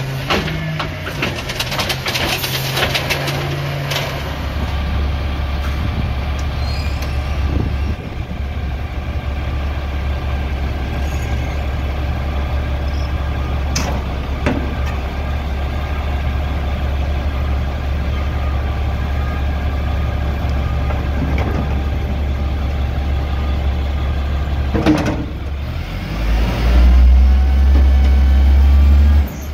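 Garbage truck diesel engines. A side-loader's engine runs in the first few seconds, then a front-loader garbage truck's diesel runs steadily. Near the end it revs up louder to drive the hydraulic arms lifting a steel commercial dumpster overhead, with an occasional metal knock.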